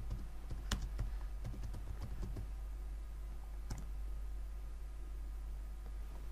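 Computer keyboard keys clicking as a short command is typed: several scattered keystrokes in the first two seconds and a last one a little past the middle, over a steady low hum.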